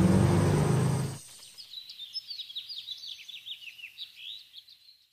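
A loud musical swell with a low hum cuts off about a second in. Then birds twitter in a run of quick, falling chirps.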